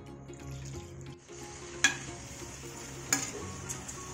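Steel slotted spoon stirring chicken curry gravy in an aluminium pressure-cooker pan. The gravy sizzles with water just added, and the spoon clinks sharply against the pot twice, about two and three seconds in. Faint background music plays underneath.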